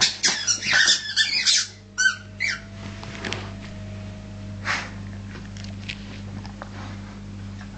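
Rubber squeaky toy ball squeaking as a dog chews on it: a quick string of loud squeaks in the first two seconds, a few more shortly after, then only occasional fainter squeaks.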